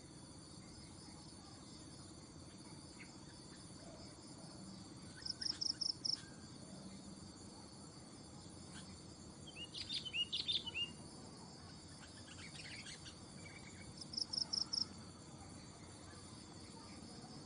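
Short bouts of quick, chattering sooty-headed bulbul calls over a steady high insect buzz. The loudest bout comes about ten seconds in.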